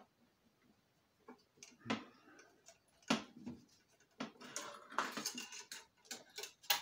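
Metal parts of a high-pressure air compressor being handled and fitted during reassembly: scattered clicks and knocks, a spell of scraping and rattling about four to six seconds in, and a sharp click near the end.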